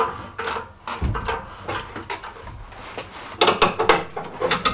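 A run of short metal clicks and clunks, with a dull thump about a second in and a quick cluster of clicks near the end: hand work on a hand-pumped hydraulic engine hoist and in a car's engine bay during engine removal.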